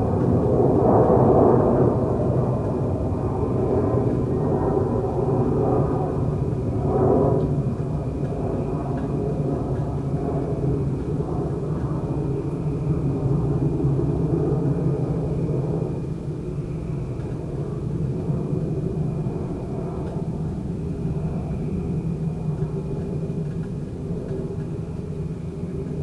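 Air conditioner's outdoor fan unit running with a steady low hum, while crickets trill steadily high above it. Louder swells come about a second in and again about seven seconds in.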